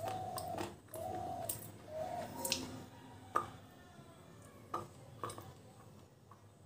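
A hard red slate bar is bitten and chewed with the front teeth, giving several sharp crunches spaced about a second apart that die away near the end.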